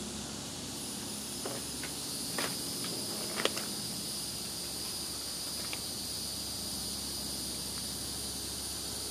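Faint, steady high-pitched insect drone. A few soft clicks and rustles come from plastic packs of soft baits being handled in a cardboard box, the clearest about three and a half seconds in.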